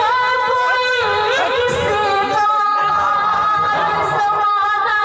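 A woman singing a ghazal in the sung tarannum style of a mushaira, into a microphone, holding long notes between short melodic phrases.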